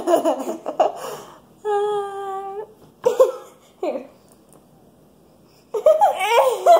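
Girls laughing and giggling, with one held, steady high vocal note about two seconds in and a longer burst of laughter near the end.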